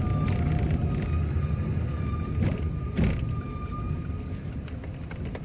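Low rumble of a car driving slowly, from engine and road noise, slowly fading. A faint high whine comes and goes, and there are two knocks about two and a half and three seconds in.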